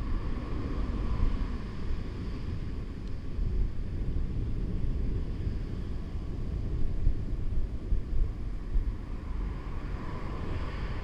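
Wind buffeting a head-mounted action camera's microphone while riding a bicycle, a steady gusting rumble with a fainter hiss above it.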